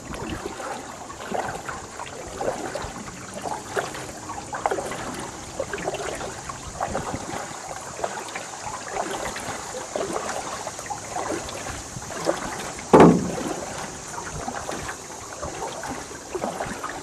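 Double-bladed kayak paddle stroking through floodwater beside a canoe, with irregular splashes and water trickling off the blades. One louder thump about thirteen seconds in.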